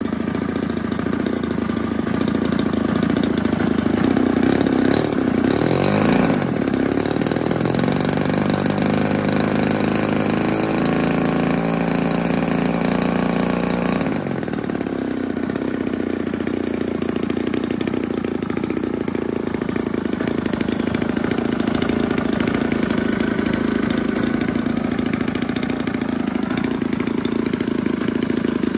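30cc gasoline two-stroke engine of a T-28 Trojan RC model airplane running on the ground, spinning its propeller. It revs up around five to six seconds in, holds a steadier, higher note until about fourteen seconds in, then settles back to a lower running speed.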